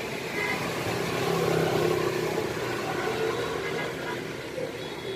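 A motor vehicle's engine, growing louder about a second in and fading away after about three seconds.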